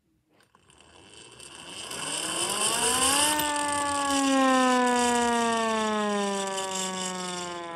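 Small hand-crank air raid siren being cranked: a single-tone wail that rises in pitch for about three seconds, then slowly falls, with a rushing hiss of air over it.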